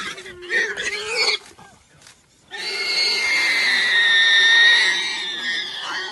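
Warthog squealing in distress while a lioness holds it down. Short harsh squeals come first, then after a brief lull one long high-pitched squeal of about three and a half seconds.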